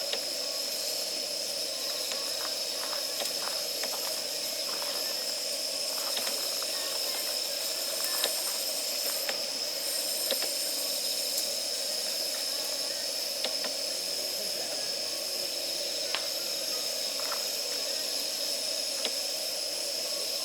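Campfire of damp firewood burning: a steady hiss with scattered sharp crackles every second or two.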